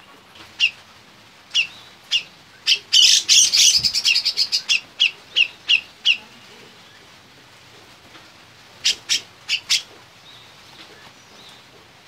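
Cucak jenggot (grey-cheeked bulbul) singing in short, high, sharp notes. About three seconds in comes a loud, rapid flurry, then a run of quick single notes, and a group of four notes near the end.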